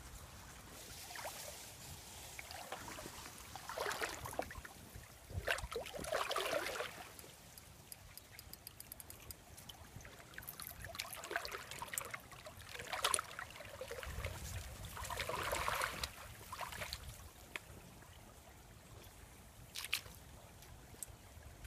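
Shallow river water splashing and sloshing in uneven bursts over a faint steady trickle, with a sharp click near the end.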